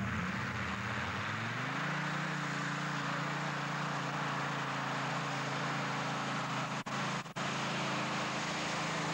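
Modified pulling tractor's engine revving up over about a second, then running at steady high revs under load as it pulls the sled. The sound cuts out briefly twice about seven seconds in.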